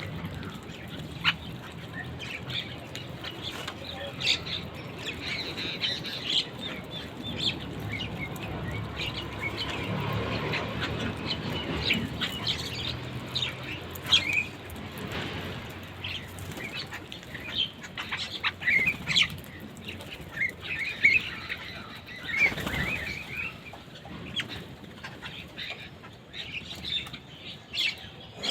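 Birds at feed giving many short chirps and squawks, with wings flapping now and then.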